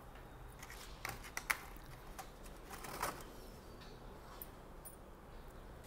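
Faint off-camera handling sounds: a few light clicks about a second in, then a short rustle or scrape near the middle, over a low steady hum.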